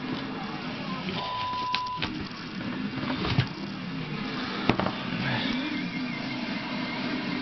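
A cardboard shoebox and tissue paper being handled as sneakers are lifted out and set down, with a couple of sharp knocks, over a steady background hum. A short electronic beep sounds about a second in.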